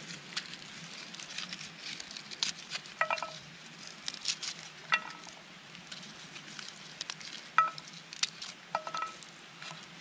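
Garlic cloves being peeled by hand over a stainless-steel camp pan: papery skins crinkling and crackling, with about four small knocks against the pan that ring briefly.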